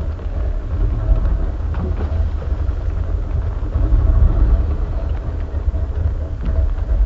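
Boat's outboard motor running, a steady low rumble.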